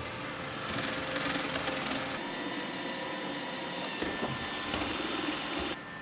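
iRobot Roomba 800-series robot vacuum cleaning a hard floor: a steady motor whine over brush and suction noise, louder and rougher for about a second and a half near the start, then dropping off suddenly near the end.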